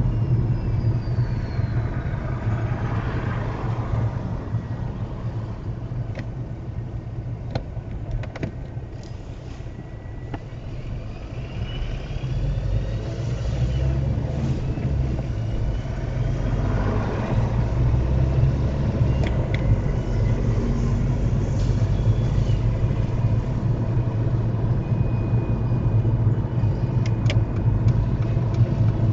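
Car interior road and engine noise, a steady low rumble. It drops as the car slows to a crawl about ten seconds in, then builds again as the car picks up speed.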